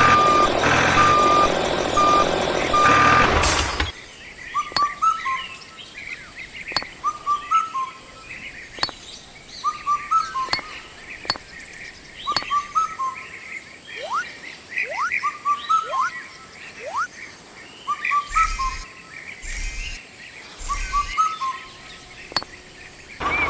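Vehicle reversing beeps, a short tone repeated over a loud steady running noise, for the first few seconds; this cuts off suddenly. Birds then chirp, a short call repeated every second or so, with sharp clicks and three short noisy bursts near the end.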